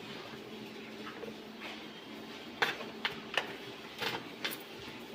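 About five sharp, short knocks or clicks in the second half, over a faint steady hum.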